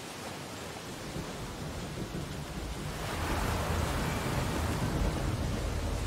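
Sea surf: a steady wash of waves that swells louder about halfway through as a wave breaks and rushes in.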